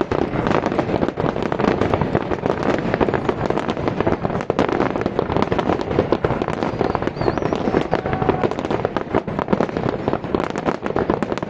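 Fireworks going off in a dense, continuous volley of rapid crackling bangs and pops.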